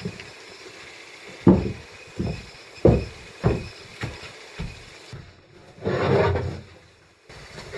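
A string of separate thumps and knocks as cardboard boxes and packing are handled and moved about on a wooden floor, with a longer scraping rustle of cardboard about six seconds in.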